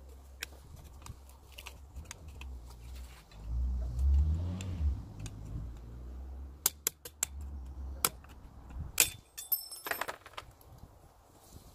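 Screwdriver tip clicking and scraping against the metal at the centre of a steel wheel, with scattered light metallic clinks. A low rumble swells about four seconds in, and a quick cluster of ringing metal clinks comes about nine seconds in.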